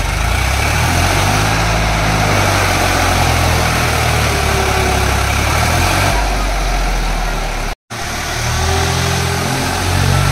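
Diesel tractor engine running, its note shifting up and down, with a sudden break in the sound about eight seconds in.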